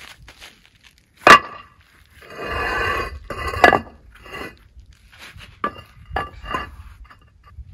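Pavers being stacked: two sharp, ringing clacks as pavers strike the pile, about a second in and again midway, with a scraping slide between them, then several lighter clinks near the end.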